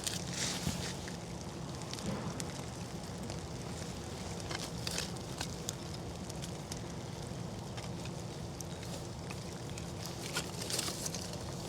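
Small split-hardwood fire burning in the rain, crackling with scattered sharp pops over a steady hiss, and a few louder hissing bursts.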